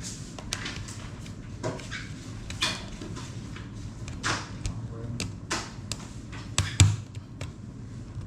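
Scattered sharp clicks and light knocks, roughly one every second, from small tools and laptop parts being handled and set down; a double knock near the end is the loudest.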